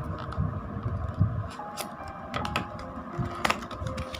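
A small cardboard box handled and its end flap opened: a few light taps, clicks and scrapes of cardboard, over a low background rumble.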